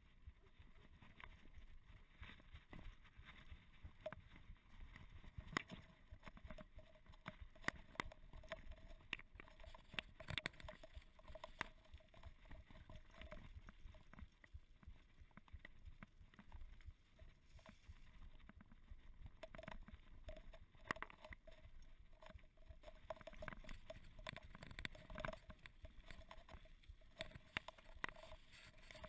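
Mountain bike rolling down a rough dirt and gravel track, its frame and parts rattling and knocking irregularly over the bumps, picked up through a camera mounted on the handlebars.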